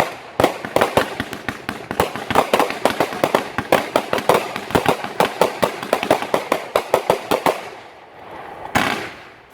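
Fireworks going off in a rapid barrage, several bangs a second for about seven seconds, then dying away, with one more bang near the end.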